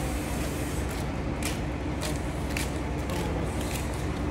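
Idling engine of a parked bus, a steady low rumble with a constant low hum, and a few light clicks about a second to two and a half seconds in.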